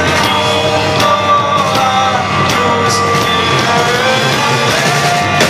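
A rock band playing live on an amplified stage: electric bass, ukulele and drums, with regular cymbal and drum hits over the sustained instrument notes.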